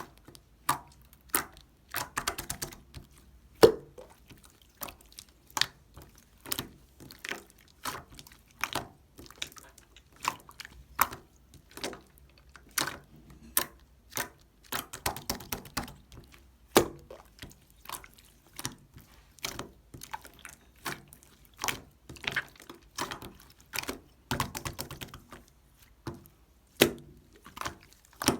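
Clear slime being pressed, folded and squeezed by hand, giving a steady run of irregular sharp clicks and pops, a few a second, with soft wet squishes between them.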